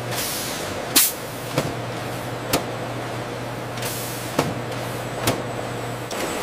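Factory machinery running with a steady low hum, a sharp hiss of air about a second in, and several scattered sharp clicks; the hum drops out near the end.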